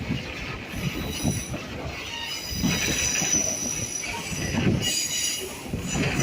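Passenger train's steel wheels squealing against the rails over the steady rumble and clatter of the cars. The high squeal is strongest a little after halfway through.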